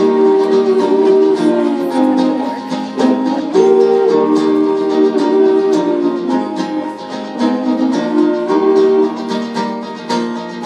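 A live acoustic pop song with strummed acoustic guitar and piano under a male singing voice holding long notes. It is heard through a cinema's speakers.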